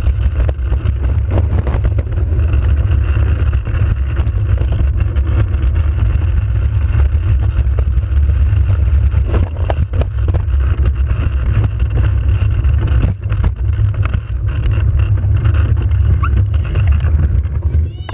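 Soapbox cart rolling fast over asphalt: a loud, steady low rumble of the hard wheels and rattling body, with a few sharp knocks from bumps. It dies away as the cart stops near the end.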